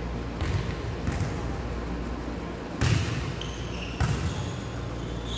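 A volleyball being hit during play: four short smacks, the loudest about three seconds in.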